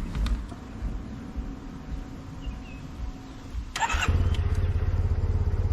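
Yamaha T-Max 530's parallel-twin engine starting about four seconds in with a short burst, then idling with an even, low pulsing beat.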